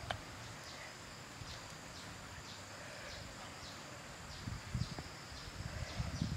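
Short high chirps from forest wildlife repeat about twice a second over a faint outdoor background. Low rustling handling noise comes in near the end.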